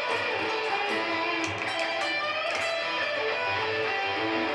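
Electric guitar playing a lead line of single notes in a five-note scale, with a string bent up in pitch about two seconds in.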